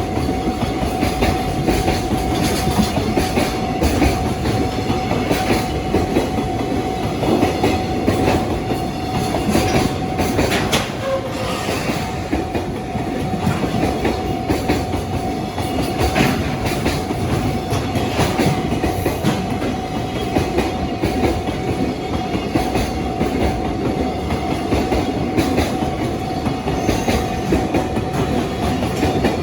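Long container freight train rolling past at close range, its wagon wheels clicking steadily over the rail joints.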